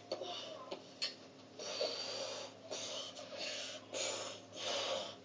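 A person breathing hard: four hissing puffs of breath about a second apart in the second half, after a few faint clicks.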